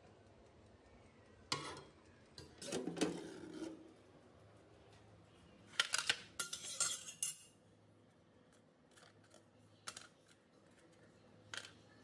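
A metal baking sheet and oven rack clanking and rattling as the sheet is taken out of the oven and set down. There is a sharp clank about a second and a half in, a rattle around three seconds, and a cluster of clanks near the middle, then a couple of lighter clicks.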